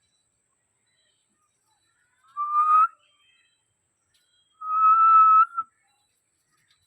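Parrot whistling twice: a short, slightly rising whistle, then a longer, steady whistle about two seconds later.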